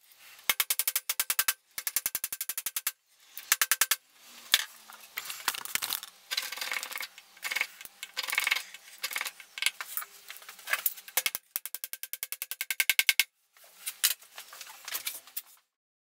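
Fast, apparently sped-up runs of clicks and taps from dowels being tapped into a 2x4 frame with a mallet. They come in short stretches that cut off abruptly several times.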